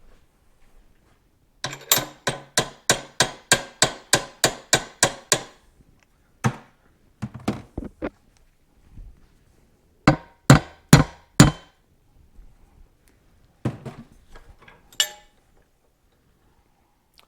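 Hammer blows driving a machined sleeve into the drilled-out foot-peg boss of a Yamaha AT-1 swing arm: a quick run of about a dozen blows, roughly three a second, then scattered strikes with four heavier blows in a row near the middle.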